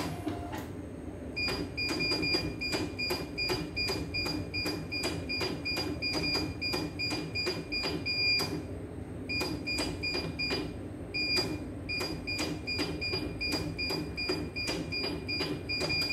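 Control-panel buttons on a computerized embroidery machine pressed over and over, each press giving a click and a short high beep, about three a second with two brief pauses. A steady low hum runs underneath.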